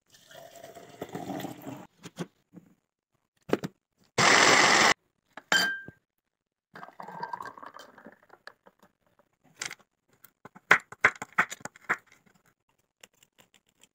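A run of drink-making sounds: liquid poured into a plastic blender cup, then a short loud rush of noise. An ice ball drops into a drinking glass with a ringing clink, and liquid pours into a glass with a rising pitch as it fills. Near the end a knife cracks and chops candy-coated chocolates on a wooden cutting board in a quick series of sharp clicks.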